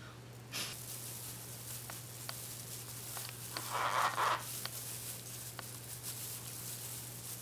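Soft rustling and scraping of bamboo leaves and a plastic glove as a sticky-rice dumpling is wrapped and tied with string, with a few faint clicks and a short louder rustle about four seconds in, over a steady low hum.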